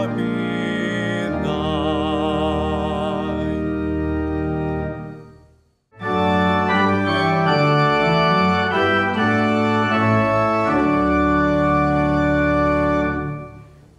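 A man's voice singing the final line of a hymn with vibrato over organ accompaniment, dying away about five seconds in. After a moment of silence, an organ plays sustained chords, fading out near the end.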